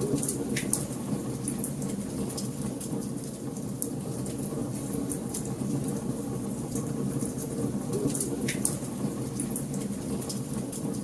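Wood fire burning in a fireplace: a steady low rumble of flames under frequent small crackles, with a few louder pops near the start and about eight seconds in.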